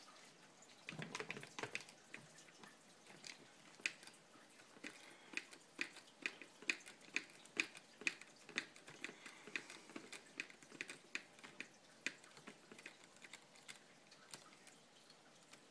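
Hand tool unscrewing small screws from a Traxxas RC truck's plastic transmission case: a short handling rustle about a second in, then a long run of small sharp clicks, about two to three a second.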